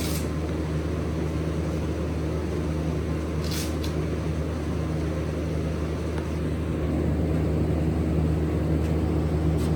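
A steady low mechanical hum, like a motor or fan running, that rises slightly in level about two-thirds of the way through, with one brief click about three and a half seconds in.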